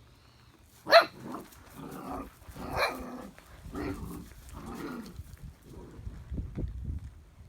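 Six-week-old puppies barking: one loud, sharp, high bark about a second in, followed by several shorter barks over the next four seconds.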